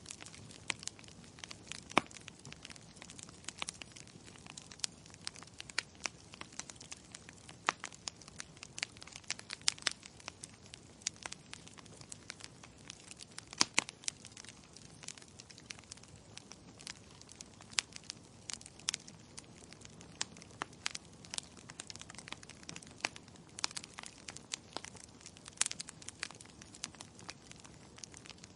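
Wood logs burning in a fireplace, crackling with irregular sharp snaps and pops over a soft steady hiss, a few pops louder than the rest.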